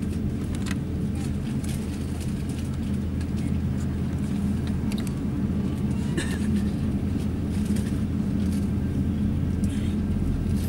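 Steady low rumble inside the cabin of an Airbus A350-900 taxiing, its Rolls-Royce Trent XWB engines at taxi power, with a few faint clicks and rattles in the cabin.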